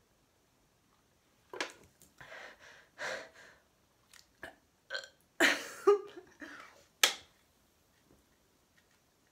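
A woman burping several times after chugging a can of carbonated Coca-Cola, a string of short belches with the loudest near the middle.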